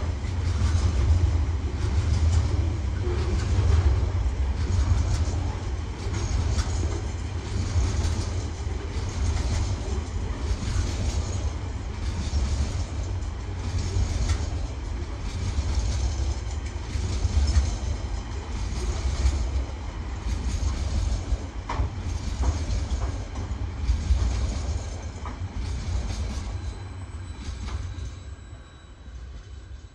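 Container wagons of a freight train rolling past close by: a steady heavy rumble with a regular clatter of wheels over rail joints, about once a second. The sound fades near the end as the last wagons go by, and a thin high squeal appears.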